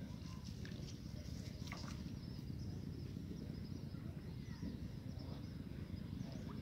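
Rural outdoor ambience: a steady low rumble, with faint high bird chirps over it.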